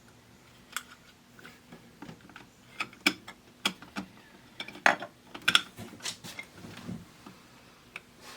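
Plastic pop bumper caps and bodies being handled and fitted together. They make irregular sharp clicks and clacks, a little over a dozen, the loudest near the middle.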